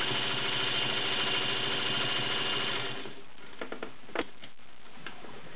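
Singer Featherweight 221-1 sewing machine, freshly lubricated, running steadily as it stitches, then stopping about three seconds in. A few light clicks follow.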